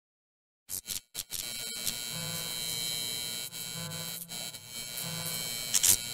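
Electric buzzing hum of a neon-light sound effect: silence, then a few stuttering crackles as it flickers on about a second in, then a steady buzz with a low pulsing throb and a brief loud crackle near the end.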